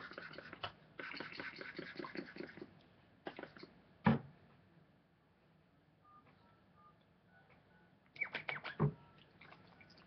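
Rustling and crackling of fingers working through twisted curly hair close to the microphone, with a single thump about four seconds in and a quick run of clicks and taps near the end.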